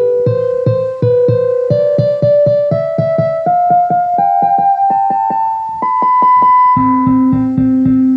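Instrumental keyboard music: a melody climbs step by step in held notes over a steady pulsing chord accompaniment, then falls back to a lower note near the end.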